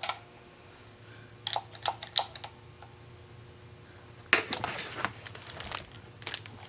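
Clicking and rattling from a sewing machine foot pedal and its plug being handled, in two short flurries, one about a second and a half in and a louder one about four seconds in, with a few more clicks near the end, over a faint steady hum.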